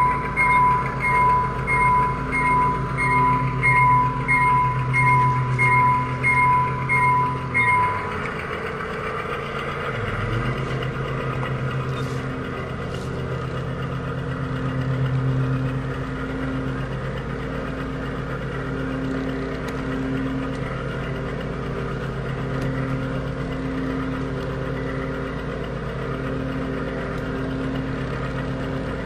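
Sound system of a G scale model diesel locomotive: a bell rings steadily, about twice a second, and stops about eight seconds in, over the steady hum of the simulated diesel engine, which keeps running with the train's rumble along the track.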